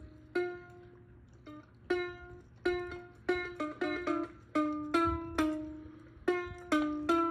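Ukulele played by hand: an unhurried, uneven run of plucked notes and chords, each struck sharply and left to ring out and fade.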